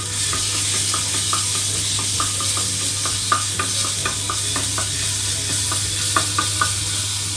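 Ginger-garlic paste sizzling in hot coconut oil in a frying pan, a steady hiss, while a wooden spatula stirs it, scraping and tapping the pan in many short ticks.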